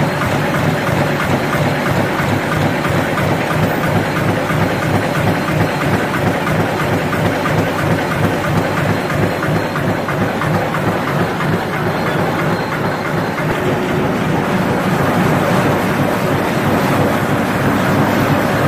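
Congzhou high-speed four-colour printer slotter die cutter running at speed as corrugated board sheets feed through it: a loud, steady mechanical noise that grows a little louder near the end.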